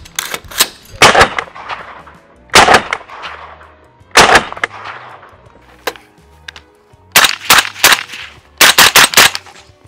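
Suppressed AR-pattern rifle with a Surefire Optimized Bolt Carrier firing. Near the start there are a couple of sharp metallic clicks of the action. Then come three single shots about a second and a half apart, followed by two quick strings of about four shots each.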